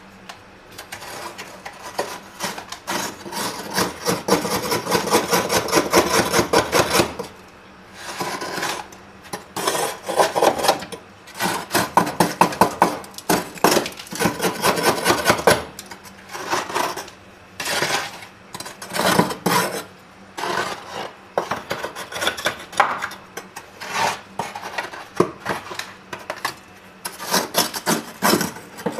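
Freezer frost being scraped and broken loose, in fast rasping strokes that come in runs of several seconds with short pauses between them.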